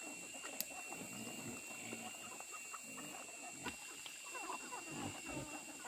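Young wild boars grunting in short, irregular calls that come more often toward the end.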